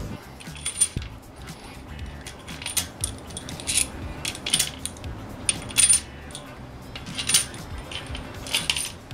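Metal main cap bolts for a Mini Cooper S W11 engine clinking as they are handled and set into the block's bolt holes by hand. There are about ten short, sharp, ringing clinks at irregular intervals.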